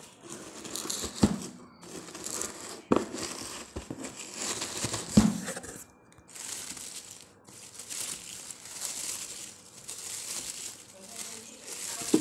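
Honeycomb kraft packing paper crinkling and rustling as it is handled and pulled from a cardboard box, in uneven bursts, with a few sharp knocks in the first half.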